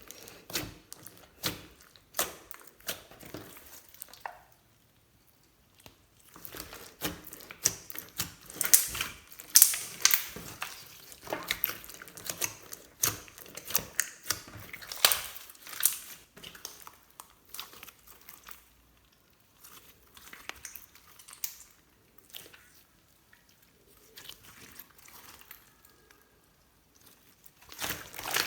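Hands squishing, stretching and folding slime, making dense, irregular sticky crackles and pops, with a short pause about five seconds in and softer handling in the last third.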